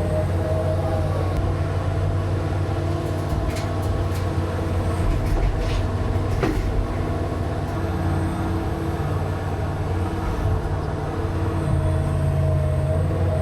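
Heavy diesel engine of a working machine running steadily, with a few sharp metallic clanks near the middle.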